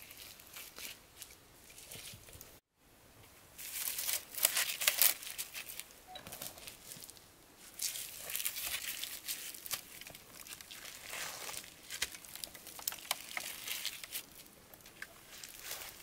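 Crinkling and rustling of something being handled, made of many small crackles; it breaks off for a moment about three seconds in, then comes back louder.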